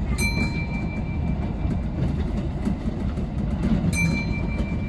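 Kintetsu local train running on the rails, heard from the front cab: a steady low running rumble of wheels on track. Twice, just after the start and again about four seconds in, a sharp click is followed by a high ringing tone that lasts about a second.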